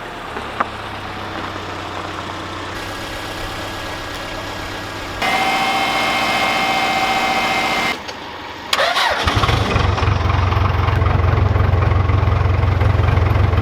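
An engine running at idle, heard in several abruptly changing stretches, one with a steady whine over it. About nine seconds in, a louder, deeper engine rumble takes over and runs steadily.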